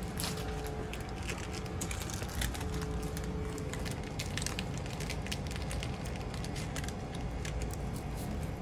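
Low, steady rumble of roadside traffic, with many small crackling, crinkling clicks of plastic packaging being handled throughout.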